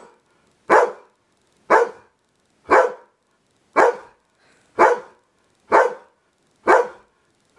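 A dog barking seven single barks, evenly spaced about a second apart, counting out its answer to the trick question "what's 3 times 3?".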